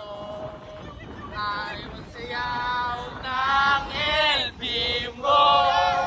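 Several voices singing together in held notes that bend in pitch, getting louder about a second and a half in.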